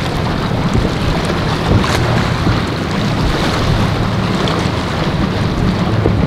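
Outboard-powered center-console boat running at speed through choppy water: a steady low engine drone under the hiss of spray and waves, with wind buffeting the microphone.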